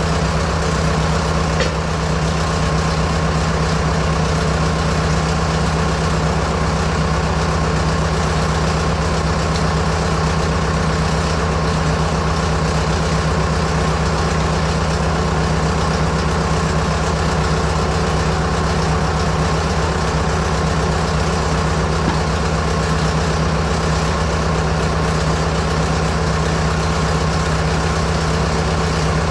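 Fordson Major tractor engine running steadily, with an even low hum and no change in speed, driving the backhoe's hydraulic pump through the PTO.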